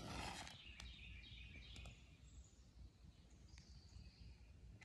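A freshly struck match head fizzing as it flares for about half a second, then near silence with faint bird chirps.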